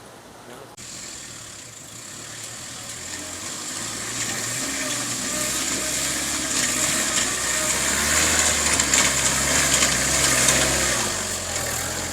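Mahindra MM550 jeep's engine running under load, growing steadily louder over several seconds, loudest about three-quarters of the way through, then easing back near the end, with a hiss rising alongside it.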